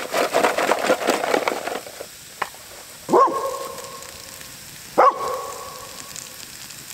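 A dog barks twice, about three and five seconds in, each a sudden loud bark that trails off in a drawn-out tone. Before that, stuffing sizzles and scrapes in a foil pan over the campfire.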